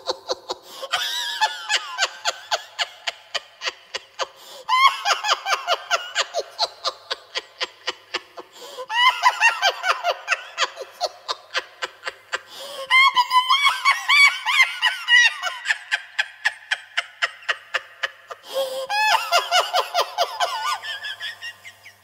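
Chipmunk-style laughter, a person's laugh pitched up like a helium voice: rapid, high-pitched 'ha-ha-ha' pulses in repeated fits, a fresh fit starting about every four seconds.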